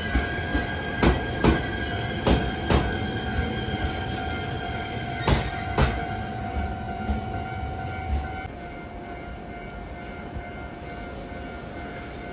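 Shinano Railway SR1 series electric train moving off past the platform: paired clacks as each bogie's wheels cross a rail joint, over a steady hum. The clacks die away and the sound drops after about eight seconds as the train leaves.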